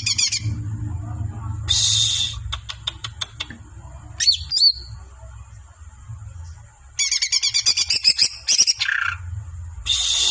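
Songbird singing in bursts of fast, rattling high trills broken by sharp clicking notes, with a brief whistled glide near the middle and a longer trill about seven seconds in.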